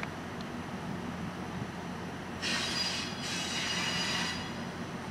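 Railroad passenger coach's steel wheel flanges squealing against the rails on curved track: two high, screechy squeals about two and a half seconds in, together lasting about two seconds. A low, steady diesel locomotive hum runs underneath.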